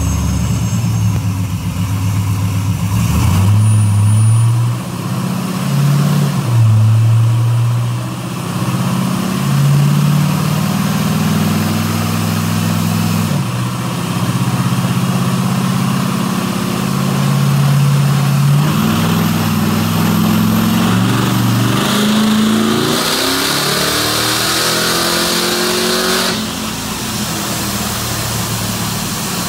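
The engine of a squarebody pickup running on a chassis dynamometer, its revs held and then stepped up and down several times. Near the end comes a full-throttle dyno pull that rises steadily in pitch for about four seconds, then cuts off sharply as the throttle closes.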